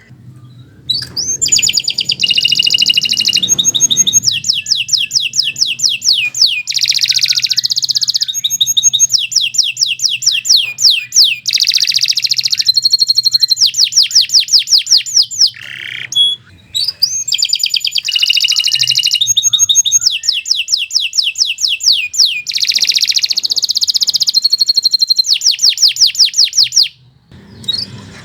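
Domestic canary singing a long, loud song of rapid trills and rolls: fast strings of repeated high notes, with changing phrases. It breaks off briefly about halfway through and stops shortly before the end.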